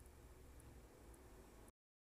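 Near silence: faint room tone with a low hum, cutting off to dead silence near the end.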